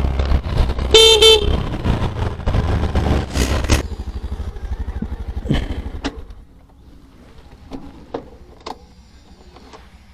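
A vehicle horn gives a short double toot about a second in, over low engine and road rumble from riding in traffic. The rumble fades after about four seconds, leaving a quieter stretch with a few scattered clicks.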